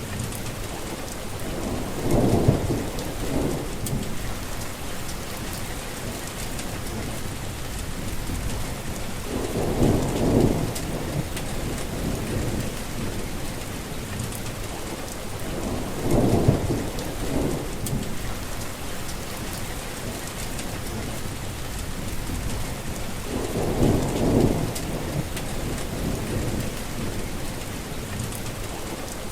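Heavy rain falling steadily, with a low rumble of thunder swelling up four times, about every seven seconds.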